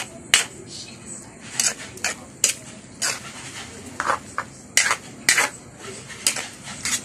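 Spatula scraping and knocking against an aluminium wok while stir-frying noodles: about ten sharp, irregular clanks and scrapes.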